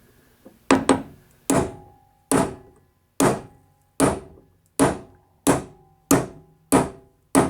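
Hammer blows on a socket used as a driver, tapping a new bearing into a Case 224 mower deck spindle housing. About ten evenly paced strikes, each with a short metallic ring.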